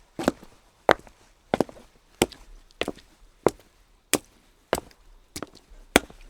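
Footsteps on wet cobblestones at a steady walking pace, about ten sharp steps at roughly one and a half a second. Some steps land as a quick double tap.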